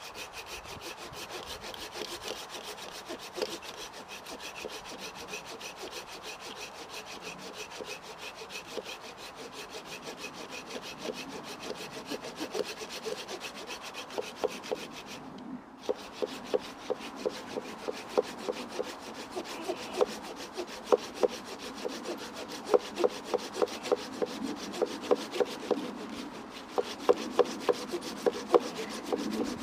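Folding bushcraft saw (Laplander) cutting into a dead birch log with steady back-and-forth strokes. There is a brief pause about halfway through, then the strokes come louder and sharper, about two to three a second.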